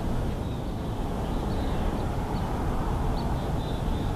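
Steady low wind rumble on an outdoor camera microphone, with a few faint, short, high chirps.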